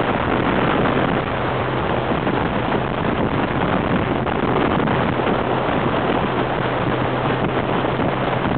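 Boat engine running steadily with the boat under way, a constant low hum under heavy wind noise on the microphone and the rush of water past the hull.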